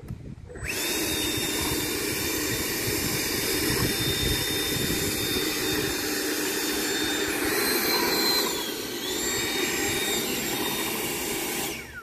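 Electric ducted fan of an FMS 80 mm Dassault Rafale RC jet starting up and running with a steady, high whine. The whine rises a little about seven and a half seconds in, dips around nine seconds, then holds steady until the fan cuts off just before the end.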